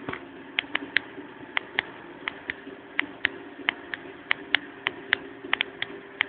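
Philips 2000-16-M table fan running with a steady hum, with many irregular sharp clicks over it, a few each second.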